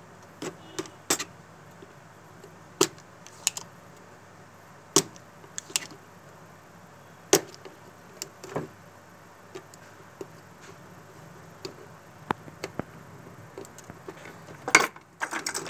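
Scattered sharp clicks and taps of a soldering iron and hand tools against a printed circuit board while a resistor is being desoldered, a dozen or so at irregular intervals with a quick cluster near the end, over a faint steady hum.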